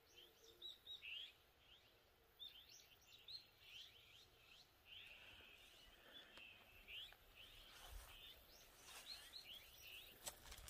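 Faint chirping of small birds, many short rising chirps one after another, with a single sharp click near the end.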